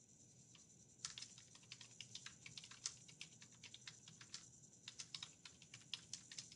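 Typing on a computer keyboard: a faint run of quick, irregular keystrokes starting about a second in.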